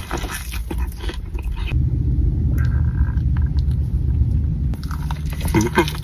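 Close-up biting and chewing of a fried chicken slider: a bite, then wet chewing with crunchy crackles, over a steady low rumble.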